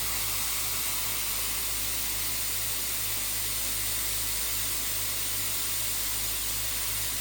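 Dyson Airwrap i.d. multi-styler running with its conical barrel, blowing a steady rushing hiss of air while a lock of hair is held on the barrel to set a curl.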